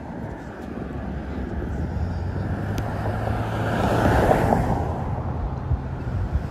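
Street traffic with a vehicle driving past close by, swelling to its loudest about four seconds in and then fading, over wind rumbling on the microphone.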